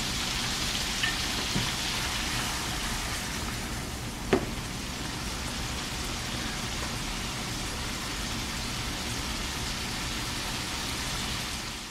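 Shrimp frying in oil in a pan, a steady sizzle with a few small pops and one sharper pop about four seconds in.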